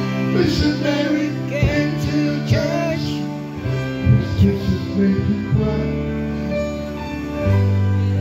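Gospel song with singing over recorded backing music: a voice carries the melody above sustained, guitar-led accompaniment.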